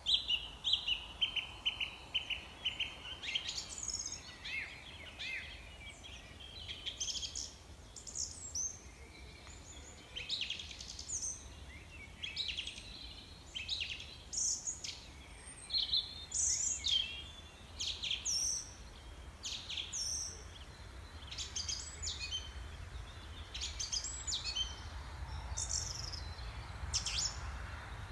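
Small songbirds chirping and singing, many short high calls and trills overlapping at an irregular pace, over a faint low background rumble.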